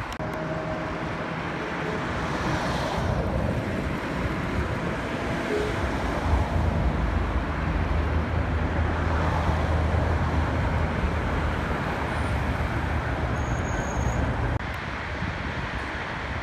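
Road traffic on a multi-lane city road: a steady wash of passing cars and tyre noise, with a low engine hum swelling through the middle. The sound drops abruptly near the end.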